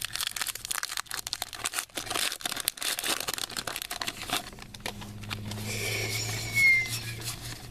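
Trading-card pack wrappers crinkling and tearing as packs are opened, with a steady low hum joining in about halfway.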